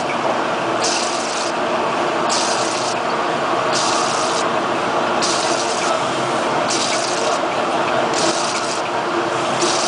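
Electric discharge machine running, a steady hum under a rushing of liquid, with a high hiss that comes and goes in regular pulses about every second and a half.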